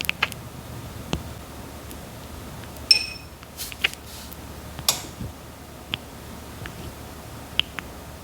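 Red-footed tortoise biting and chewing papaya: irregular sharp, short clicks about once a second. The loudest, about three seconds in, rings briefly.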